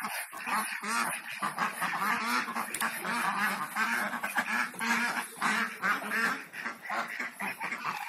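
A flock of Muxan ducks, a White Pekin × Muscovy cross, quacking continuously, with many short calls overlapping.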